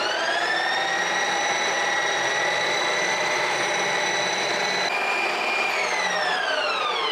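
Ninja Creami ice cream maker running a re-spin cycle, its motor whining steadily as the blade works a frozen pint of ice cream that was still powdery into a creamy texture. About six seconds in, the whine starts to wind down, falling in pitch as the cycle ends.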